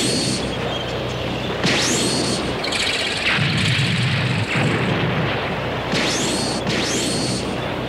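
Animated sci-fi battle sound effects: several sharp zapping shots, each with a high sweeping tail, and a rumbling explosion in the middle, over a steady low hum.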